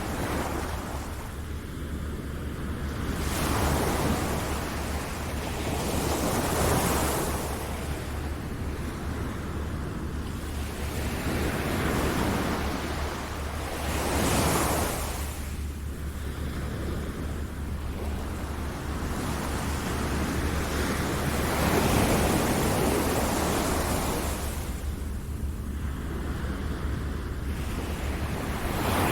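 Ocean surf, waves washing in and drawing back in slow swells every few seconds, over a steady low rumble.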